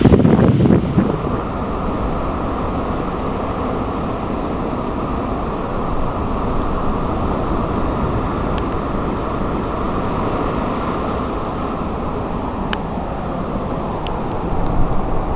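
Wind buffeting the microphone, hardest in the first second or so, then a steady rush of wind noise mixed with the surf breaking on the beach below.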